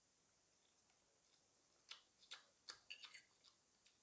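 Near silence broken by a few faint, short clicks about two to three and a half seconds in.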